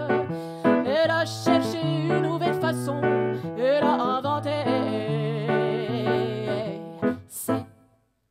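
A woman singing with piano accompaniment, her voice wavering in vibrato over steady low piano notes. The music dies away near the end.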